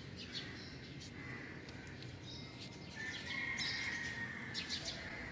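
Birds chirping faintly: scattered short high chirps over a thin steady high note that grows a little louder about three seconds in.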